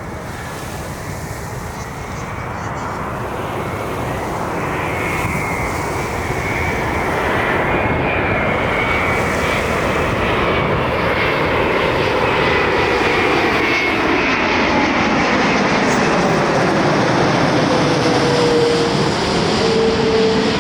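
Jet engines of an ANA Boeing 787-8 (Rolls-Royce Trent 1000 turbofans) on approach to land, the noise growing steadily louder as the airliner nears and passes. A thin high whine runs through it, and a lower whine falls in pitch near the end.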